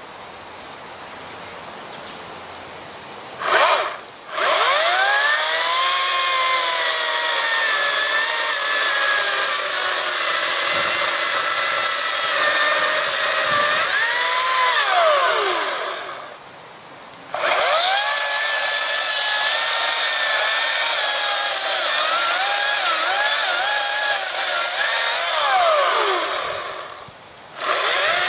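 Ryobi 40-volt brushless electric 14-inch chainsaw cutting into the trunk of a small spruce. After a short squeeze of the trigger about three seconds in, the motor runs in long stretches, its pitch dipping as the chain bites into the wood and rising as it frees. It stops briefly twice, about two thirds of the way through and again near the end, then starts up again.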